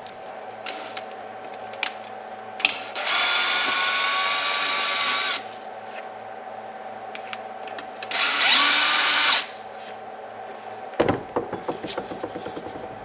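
Small cordless power drill or screwdriver running in two bursts, one of about two and a half seconds and a shorter one that rises in pitch as it spins up. Light clicks and rattles of small parts follow near the end.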